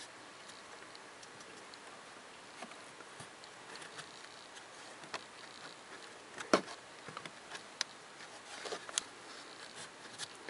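A cabin air filter being pushed by hand into its plastic housing behind the glove box: faint scrapes and scattered small clicks of the filter against the plastic, with one sharper knock about six and a half seconds in and a cluster of clicks near the end.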